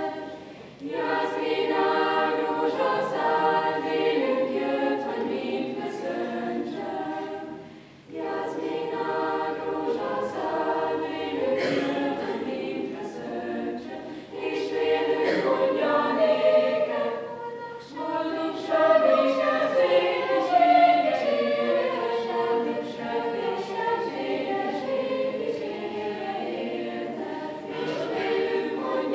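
A school chamber choir singing a cappella in phrases, with brief breaks between phrases about one, eight and eighteen seconds in.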